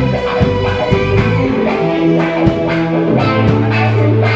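Live rock band playing, with electric guitar and keyboard over a steady drum beat.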